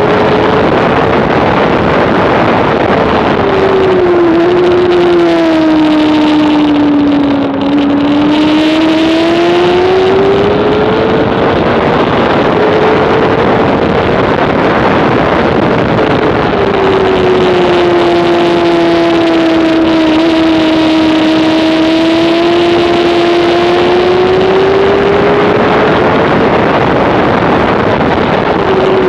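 Honda CBR600RR's inline-four racing engine at high revs. Its pitch sinks slowly over several seconds and climbs back, twice, over a heavy rush of wind and road noise at the onboard microphone.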